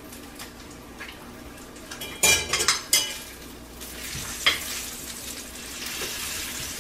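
Bacon sizzling in a cast iron frying pan, the sizzle growing a little louder as the strips are turned. A short clatter of utensil on pan comes about two seconds in, and a single click follows about four and a half seconds in.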